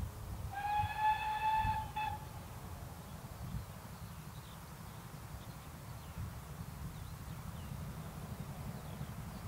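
Distant steam locomotive whistle: one steady, slightly rising note about a second and a half long, starting about half a second in, over a constant low rumble.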